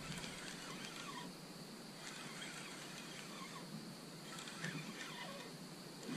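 Faint night-time animal calls, short and scattered, over a steady high hiss.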